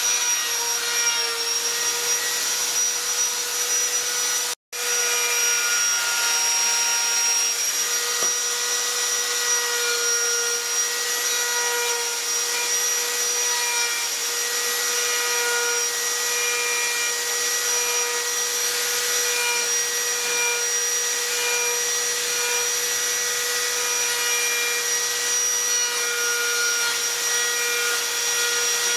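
Handheld electric die grinder with a rotary carving burr running at a steady high whine as it cuts into wood. The sound cuts out for an instant about four and a half seconds in.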